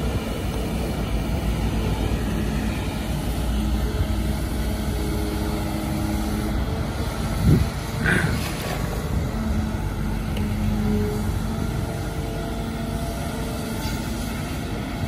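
Kobelco SK200 excavator's diesel engine running steadily as the machine swings and digs in the muddy ditch, with one sharp knock a little past the middle followed by a brief higher-pitched squeal.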